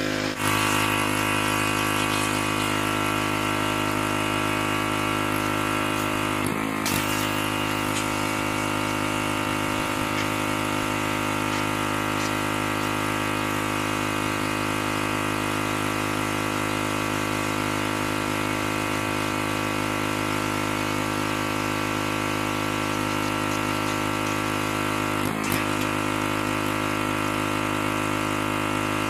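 Pressure washer running steadily, its engine and pump holding one unchanging pitch, with brief dips about seven seconds in and again near the end.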